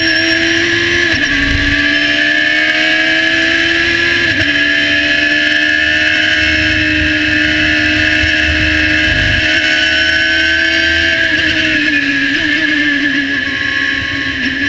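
Radical SR3 race car's engine at full throttle, heard from on board: a high-revving note above 9,000 rpm climbing slowly, with quick upshifts about one and four seconds in, and a dip and wobble in pitch near the end. A low rumble of wind and road sits beneath.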